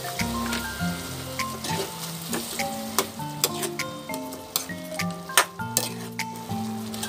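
A spatula scraping and clacking against a wok as chicken in soy sauce and vinegar is stirred, with sharp clicks every so often, loudest a little past halfway, over a sizzle from the pan. Background music with a simple stepping melody plays throughout.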